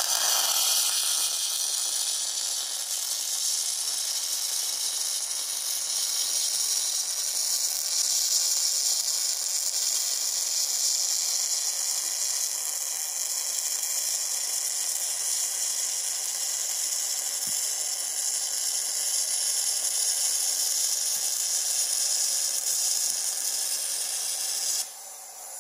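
MIG welding arc running steadily with a hissing sizzle for a continuous weld bead. It starts abruptly and cuts off abruptly near the end when the trigger is released.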